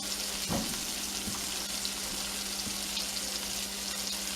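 Trout fillets sizzling and crackling in oil in a frying pan as they brown, with a brief soft knock about half a second in.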